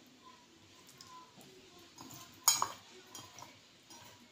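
A dish or utensil clinks once sharply about two and a half seconds in, with a few faint ticks around it.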